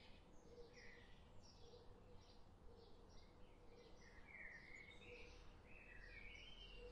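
Faint birds chirping, many short high chirps repeating over a quiet background hum.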